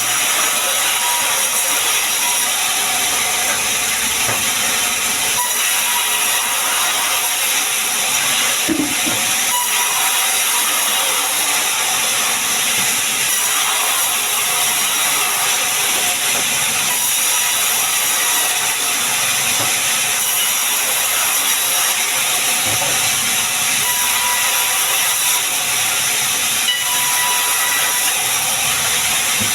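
Sawmill saw running through sengon timber, a loud steady hiss that holds without a break.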